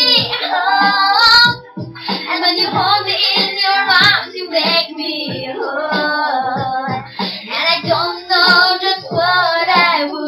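A teenage girl singing a pop song in Polish.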